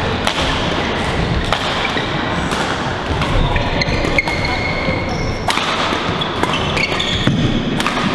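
Badminton rallies: rackets striking shuttlecocks in sharp, irregular smacks from several courts, with short squeaks of shoes on the court floor and thuds of footwork.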